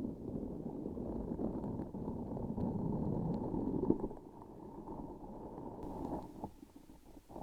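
Close-miked sticky crackling and squishing as a transparent sticky object with a filling inside is pressed and handled. The sound is muffled, louder in the middle and thinning to scattered small clicks near the end.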